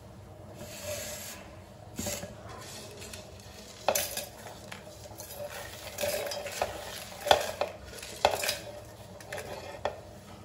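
Garlic cloves, green and red chillies and whole spices dropped by hand into a stainless-steel mixer-grinder jar: scattered clinks and rattles ringing off the metal, the sharpest about seven and eight seconds in.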